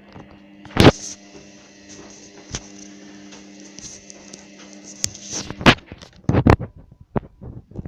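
Hoover Dynamic DYN9124DG washing machine starting up: a steady hum, with a hiss that comes on with a loud click about a second in and stops after about four seconds, then a quick run of loud clicks.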